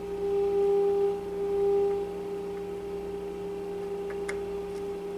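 Steady test tone from the loudspeaker of a 1936 Philco 116x radio, fed by a signal generator into the antenna. It swells and dips twice in the first two seconds as the wave trap is turned, then holds at a lower level, the trap set near its minimum so the signal has dropped. A faint click about four seconds in.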